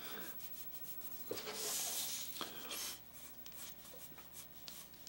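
Graphite pencil scratching across drawing paper in rough shading strokes, loudest for a second or so near the middle.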